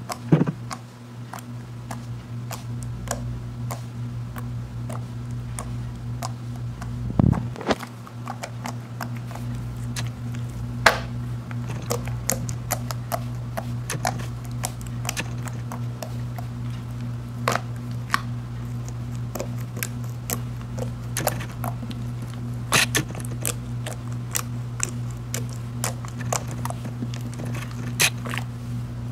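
Fluffy slime being pressed and kneaded by hand, giving irregular small sticky pops and clicks, over a steady low hum.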